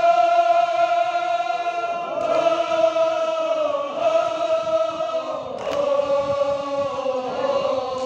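Male voices chanting a Kashmiri marsiya (mourning elegy) together in long, drawn-out sung notes that slide slowly between pitches. A brief click about five and a half seconds in.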